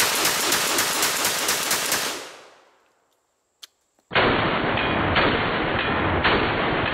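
Franchi SPAS-12 12-gauge shotgun fired once, the blast ringing out loud for about two seconds before fading away. After a short silence and a single click, a muffled low rumble follows with a dull thud about once a second.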